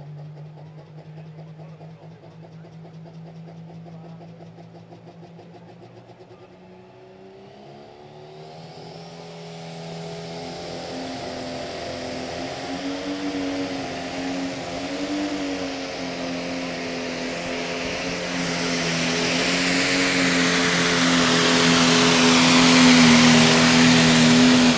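John Deere Pro Stock pulling tractor's turbocharged diesel engine running steadily, then revving up about seven seconds in. It pulls the weight-transfer sled at full power, getting steadily louder and brighter to the end.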